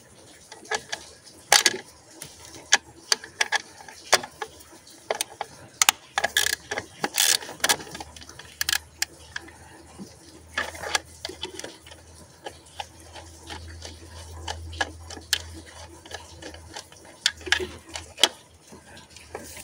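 Hand socket ratchet clicking in short, irregular runs, with small metal knocks, as the nuts holding down the vacuum box are undone.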